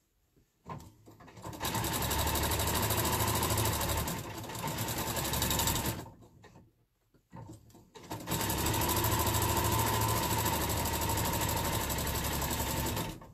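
Electric sewing machine stitching a seam through layered quilt fabric, running in two spells of about four and five seconds with a pause of a couple of seconds between them.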